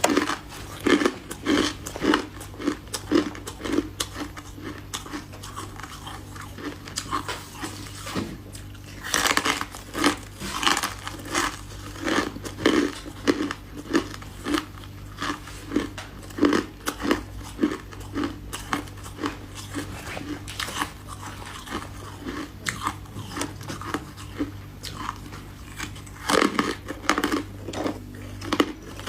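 Close-up crunching and chewing of chunks of freezer frost, a steady run of crisp crunches about one to two a second, with louder bites at about nine seconds in and near the end.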